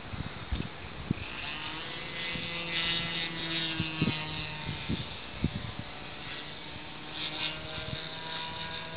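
A small aircraft's propeller motor droning overhead, its pitch shifting slowly as it flies, with a few short knocks close to the microphone.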